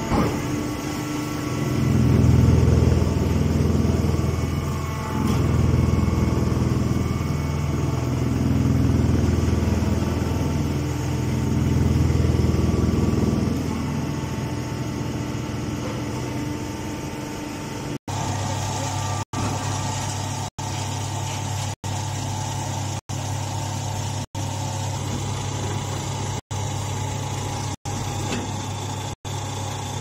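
Hydraulic hay press baler running: a low machine hum that swells and eases several times in the first half, then settles into an even drone. In the second half the sound cuts out briefly about every second and a quarter.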